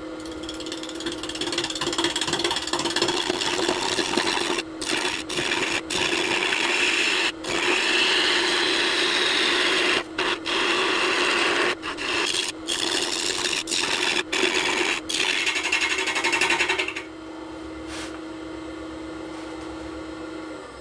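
Wood lathe running with a steady motor hum while a gouge cuts a spinning blank of walnut pieces set in blue-pigmented epoxy. The loud cutting noise is broken by brief gaps as the tool leaves the wood. About seventeen seconds in the cutting stops, and the lathe runs on alone until its motor stops right at the end.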